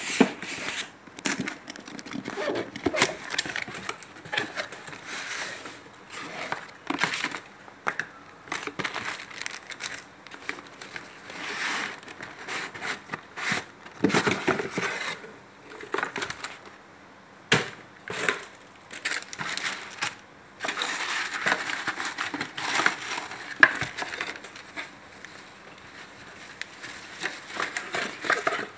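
A cardboard box being opened by hand and its paper packing handled: irregular scraping, rustling and crinkling, broken by occasional sharp knocks and clicks.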